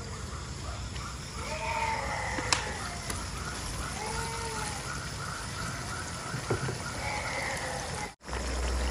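Night-time animal calls: a steady chirping of about four pulses a second, with a few short rising-and-falling calls over it. Under them is a low hiss of pork simmering in liquid in a wok.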